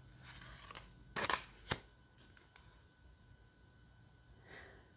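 Tarot cards rustling and sliding against each other as they are flipped through by hand, with a brief rasp a little after a second in and one sharp click just after it.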